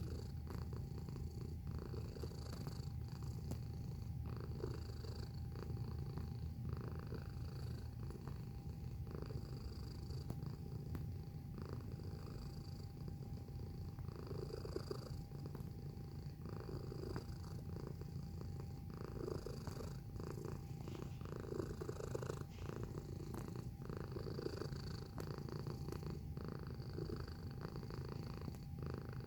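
Domestic cat purring steadily and continuously, a low pulsing rumble.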